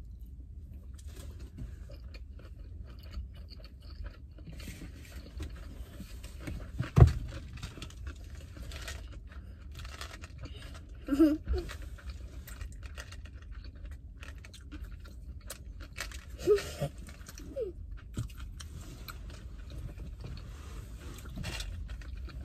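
Close-up chewing and munching of a sushi roll, with bursts of fine crackle. A single sharp knock comes about seven seconds in, over a low steady hum.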